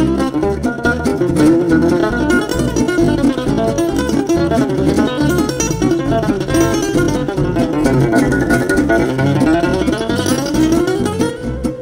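Background music: acoustic guitar playing a quick plucked tune over a steady bass beat.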